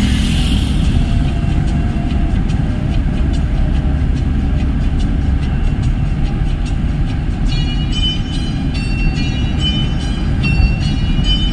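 Steady low rumble of a car driving at speed on a highway: road and wind noise heard from inside the car. For the last few seconds a quick run of short high-pitched notes at changing pitches sounds over it.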